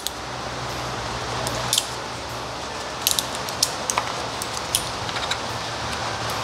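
Small magnets clicking and clinking, a scattering of light metallic clicks as they are pulled off the lifters in a BMW M54 cylinder head and gathered in the hand. A steady hiss and low hum run underneath.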